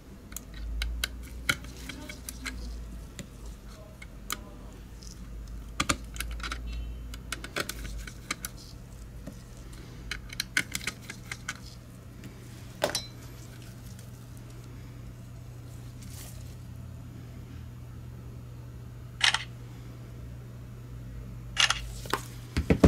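Scattered small clicks and taps of a precision screwdriver, tiny screws and the plastic shell of a Logitech G Pro X Superlight mouse being taken apart by hand, over a steady low hum that comes in about a third of the way through.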